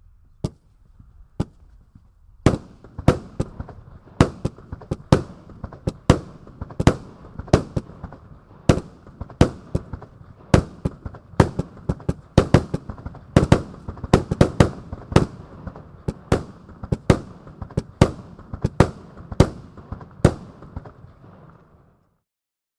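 RedWire Blue Peony 25-shot, 25 mm fireworks cake firing: blue-tailed shells with titanium bursts going off in quick succession as sharp bangs, one or two a second, over a continuous hiss and crackle. A couple of shots come first, then the barrage runs steadily for about twenty seconds before the last bangs and the hiss die away.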